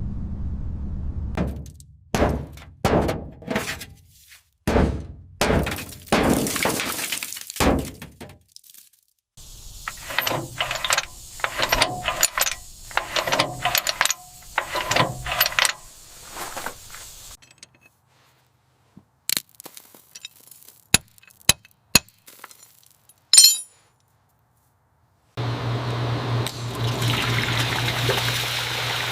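Workshop restoration sounds in short cut-together pieces: a run of repeated scraping or brushing strokes, then a few sharp clicks and a single ringing clink, then a steady machine hum with hiss that starts abruptly near the end.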